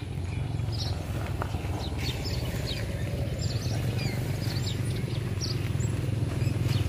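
Small birds chirping in many short, high calls over a steady low hum that grows a little louder toward the end.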